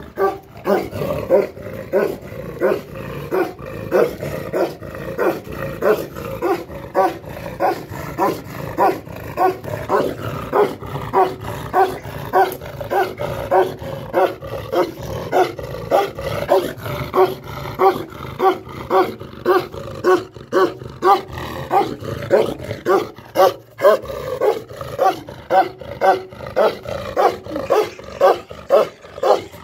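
A large long-haired dog barking over and over in a steady rhythm, about two deep barks a second, with a low growl running beneath.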